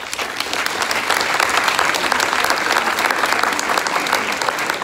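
Audience applause: many hands clapping together, breaking out suddenly and holding steady.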